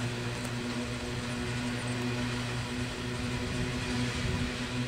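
Loaded coal train passing: the diesel locomotive's engine gives a steady droning hum over the even noise of the wagons' wheels on the rails.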